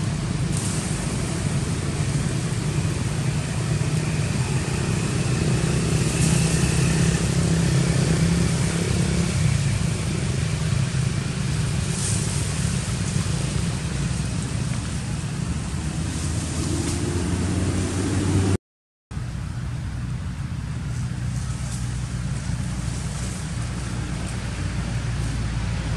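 Steady low rumble of outdoor background noise, broken by a brief dropout to complete silence about two-thirds of the way through.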